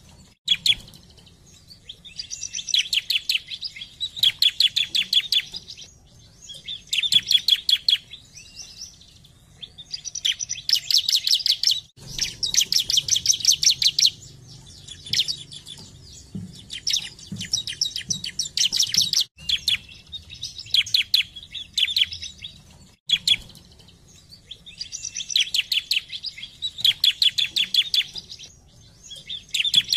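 Bar-winged prinia (ciblek) singing loud phrases of rapid, ticking chirps, about ten notes a second. Each phrase runs for one to three seconds, with short pauses between.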